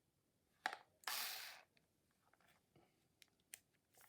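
A click, then the Bosch IXO cordless screwdriver's small motor spinning in one short burst of about half a second on a trigger pull, followed by a few light handling clicks.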